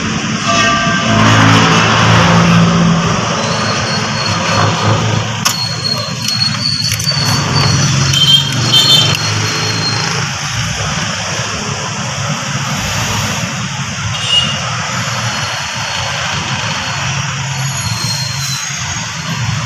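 Steady noise of road traffic: vehicle engines running and passing, with a low hum under a wide hiss.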